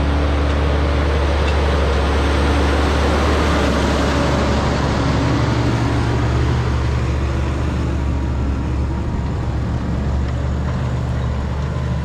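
Valtra T202 tractor's diesel engine running steadily under load while pulling a seven-furrow reversible plough through the ground. A steady deep drone sits under a broad hiss of noise.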